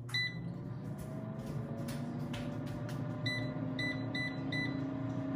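Power XL air fryer: a beep as the control panel is pressed, then its fan motor starting and running with a steady hum that rises slightly in pitch, and a quick run of about five beeps from the touch buttons about three seconds in.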